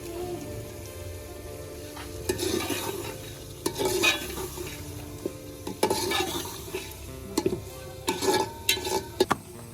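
A utensil stirring and scraping food in a cooking pot, in several irregular bursts of strokes, over a low steady frying sizzle.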